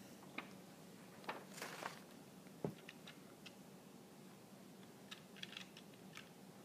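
Near silence: faint room tone with a few soft clicks and rustles, the sharpest click about two and a half seconds in.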